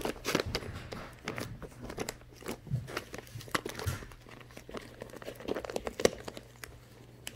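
Crinkly cat-treat bag rustling and crackling in irregular bursts as kittens lie and shift on it.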